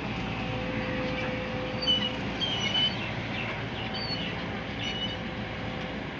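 JCB JS140 tracked excavator's diesel engine running steadily under work, with a steady whine over the rumble. A few short high-pitched chirps come between about two and four seconds in.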